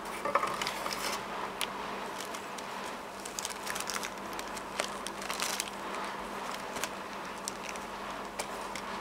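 A thin plastic disc sleeve crinkling and rustling as it is handled, with scattered sharp crackles, over a steady background hum.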